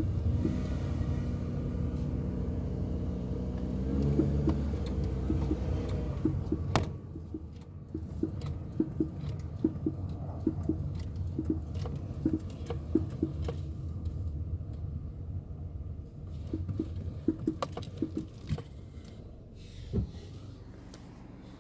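Peugeot 308 knocking from its chassis, the fault that shows on small bumps and steering turns: short, irregular knocks, many in the middle of the stretch, with a heavier thump near the end. A steady car rumble runs under the first few seconds. The owner has had no workshop find the cause.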